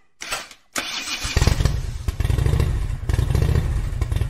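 Motorcycle engine starting: a few short bursts at first, then it catches about a second and a half in and runs with a loud, deep, fast-pulsing rumble.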